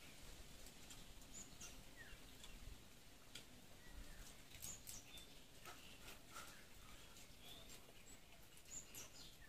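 Near silence with faint scattered clicks and short high chirps.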